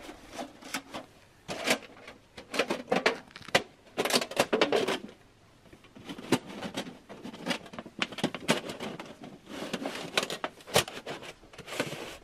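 Thin titanium stovepipe sections clicking, clattering and scraping as they are handled and fitted together, in an irregular run of sharp knocks with a short lull about midway.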